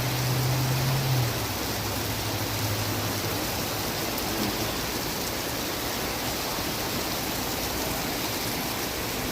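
Heavy thunderstorm rain falling steadily as an even hiss. A low steady hum underneath fades out about three seconds in.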